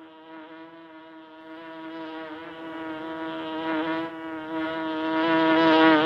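A bee buzzing in flight: one steady, slightly wavering drone with many overtones, soft at first and growing louder toward the end.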